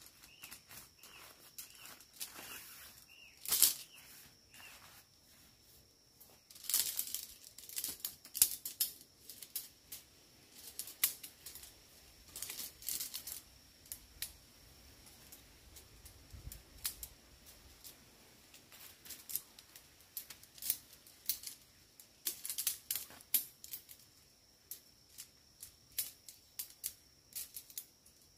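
Metal tent poles being unpacked from a nylon stuff sack and fitted together: rustling of fabric and a string of short sharp clicks and clacks as the pole sections knock and snap into each other. A faint steady high whine runs underneath.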